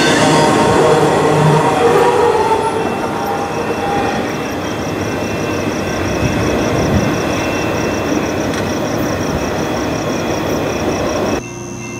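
Train cars rolling past on steel rails, with wheels squealing in the first few seconds and then a steadier rumble and rattle. The noise cuts off abruptly near the end, leaving a quieter background with a steady high tone.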